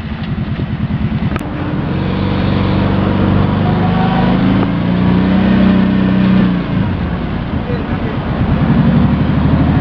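Arctic Cat ATV engine running under throttle, revving up about a second and a half in, holding, easing off around seven seconds, then revving up again near the end.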